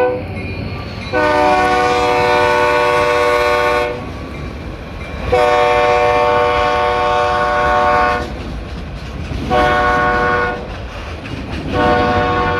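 Freight locomotive's multi-chime air horn, from an EMD SD40, blowing long, long, short, long: the standard warning for a grade crossing. Under the horn the passing train rumbles and its wheels clack on the rails.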